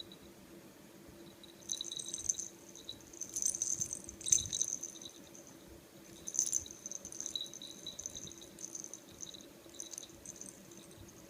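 A kitten playing with a toy ball: light rattling and clicking in irregular spurts, loudest about four and six and a half seconds in, over a faint steady hum.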